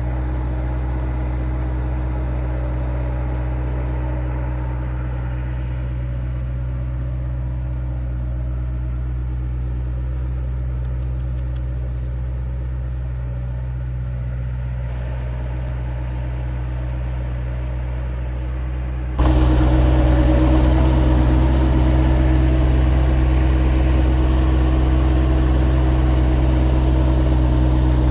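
An engine running steadily, with a sudden jump in loudness about two-thirds of the way through that then holds.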